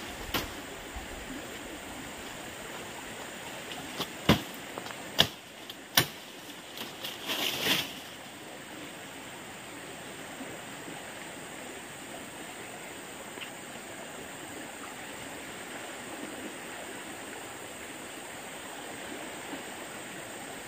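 Steady rushing water noise, with three sharp knocks about four to six seconds in and a short noisy rustle just after.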